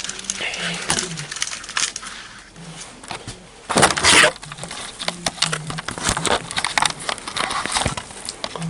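Seat belt retractor worked by hand: clicks and rattles of its mechanism and plastic housing, with one louder noisy rush about four seconds in as the belt runs. The retractor has just been freed from a jam and now runs freely.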